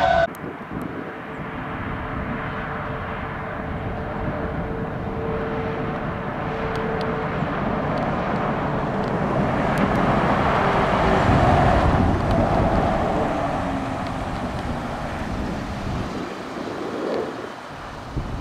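Ram chassis-cab paramedic ambulance driving past: engine and tyre noise swells to its loudest about eleven seconds in, then fades as it pulls away, with a faint thin whine underneath.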